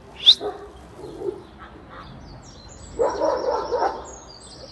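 Kangal shepherd dogs barking: a run of deep barks about three seconds in, after a single sharp, high, rising cry just after the start. Birds chirp faintly in the background.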